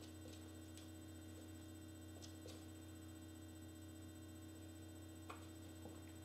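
Near silence: a steady low electrical hum of the recording, with a few faint short clicks scattered through.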